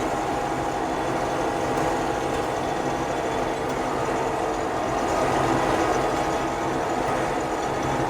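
Combine harvester running steadily while cutting and threshing wheat: engine and threshing machinery with a constant drone and steady whine.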